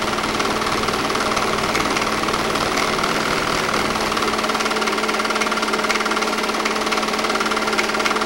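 8mm film projector running: a steady motor hum with a fast, even clatter from the film-advance mechanism.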